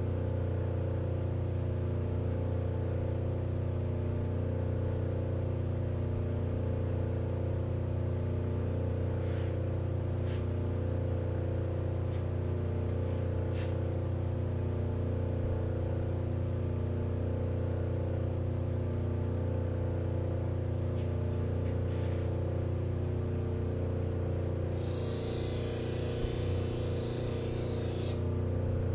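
Motor of a bench-grinder sharpening setup with CBN wheels, running with a steady hum. A few faint ticks come midway, and near the end a knife edge meets a wheel, giving a few seconds of grinding hiss.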